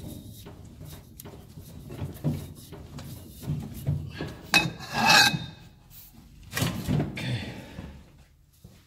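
Metal parts being handled and worked at a workbench: scattered knocks with rasping scrapes, the loudest about halfway through and again about two-thirds of the way in.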